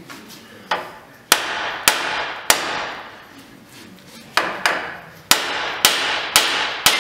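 A hammer striking the steering knuckle: about ten sharp blows, each ringing briefly, in two runs with a pause of nearly two seconds between them. The blows shock the pressed-in tie rod end stud loose from the knuckle.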